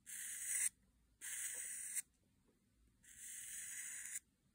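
Felt tip of a black Sharpie marker drawn along the faces of a small hexagonal metal tool, inking them to show where filing has reached. Three strokes, each about a second long, with short pauses between.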